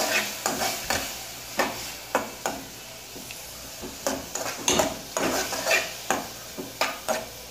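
Sliced onions sizzling in oil and soy sauce in an aluminium pan, being caramelised, while a utensil stirs them and scrapes against the pan in quick repeated strokes, with a short lull in the stirring midway.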